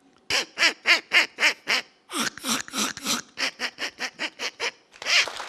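A man imitating a duck's quacking into a microphone: two fast runs of loud quacks, about four a second, with a short break between them. Audience applause starts near the end.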